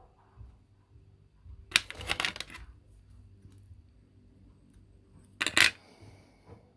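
Two short bursts of clicking, rustling handling noise as craft materials are handled on the work table, the first about two seconds in and lasting about a second, the second shorter, near the end.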